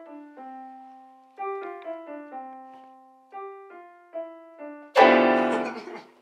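Piano music: single notes, one after another, each dying away. About five seconds in comes a much louder, fuller sound that cuts off abruptly.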